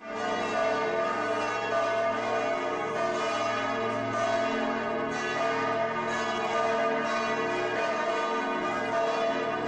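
Several church bells ringing together in a steady peal, with fresh strikes about once a second.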